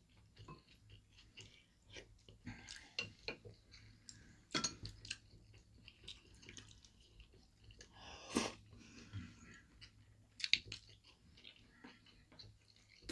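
Two people eating: soft chewing and mouth sounds, with chopsticks and spoons now and then clicking against ceramic bowls, the sharpest clicks about four and a half, eight and ten and a half seconds in.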